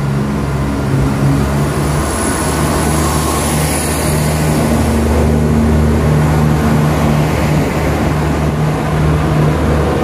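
Passenger multiple-unit train pulling out of the platform and passing close by, gathering speed, with a steady low hum from its running gear and traction equipment over a general rumble.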